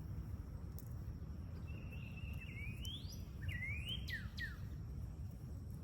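Northern cardinal singing: a held whistle, then two rising slurred whistles and two quick falling notes, over a steady low background rumble.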